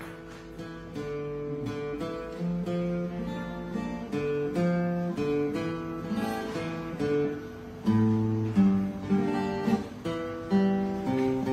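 Acoustic guitar playing an instrumental intro, a run of ringing picked and strummed notes that grows louder, with stronger bass notes, about eight seconds in.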